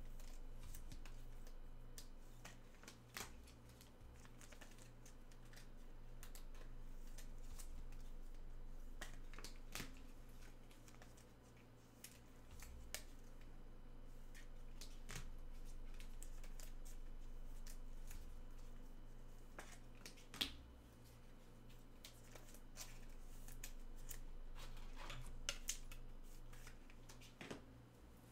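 Trading cards and card packaging being handled: scattered small clicks, rustles and scrapes, with one sharper click about two-thirds of the way through, over a steady low hum.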